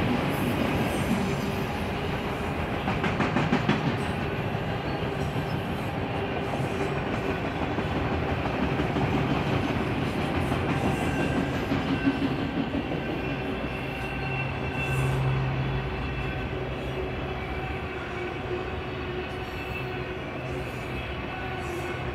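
Autorack freight cars rolling past on steel rails: a steady rumble and clatter of wheels with a few faint steady tones. There are louder knocks about three to four seconds in and again around twelve seconds.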